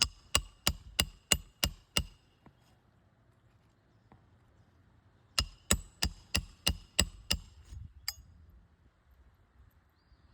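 Roofing hammer tapping a metal roof snake to drive a nail under a three-tab asphalt shingle: two runs of quick ringing metal taps, about three a second, with a pause between them and one last tap near the end.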